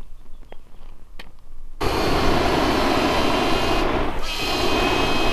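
A few faint clicks, then a PulseFire flamethrower attachment firing. A loud steady rushing blast starts suddenly about two seconds in and holds, with a high steady whine joining near the end.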